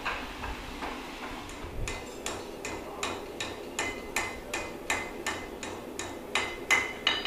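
Blacksmith's hammer striking on an anvil in a steady rhythm, about three ringing blows a second, lighter for the first couple of seconds.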